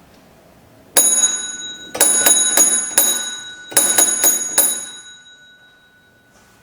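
A small metal bell dinging in two quick bursts, about five strikes and then four, each strike ringing out high and bright before fading.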